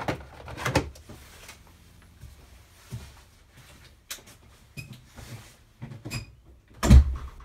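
Several short knocks and clicks, with one heavier thump about seven seconds in.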